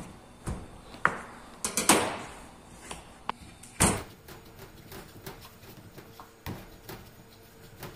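Sharp knocks of a kitchen knife and dough pieces against a wooden board and steel counter, about six in the first four seconds. After that, only faint soft taps as momo dough is rolled by hand on the board.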